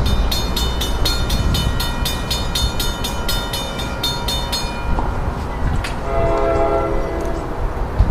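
Railroad grade-crossing warning bells ring rapidly, about four strikes a second, while the crossing gates lower, then stop about five seconds in. About six seconds in, a train horn sounds briefly over a low background rumble.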